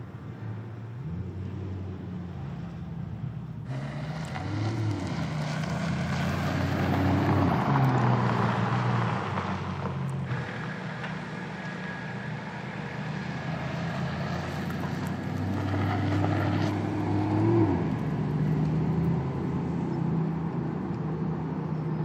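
Porsche Panamera Turbo S Sport Turismo's 4.0-litre twin-turbo V8 running at low speed, its pitch rising and falling a few times with the throttle. The sound changes abruptly about four seconds in and again about ten seconds in.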